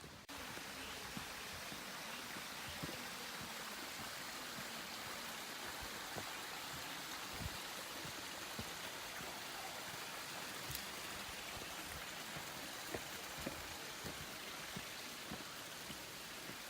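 Steady watery hiss, like a stream or rain in the forest, with scattered light ticks and drips; it cuts in abruptly right at the start.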